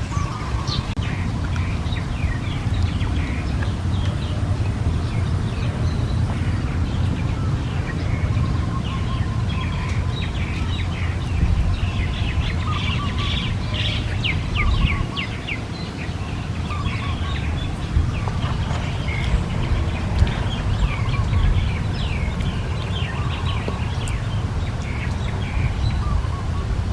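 Several small birds chirping and calling in quick, overlapping bursts, busiest in the middle, over a steady low rumble.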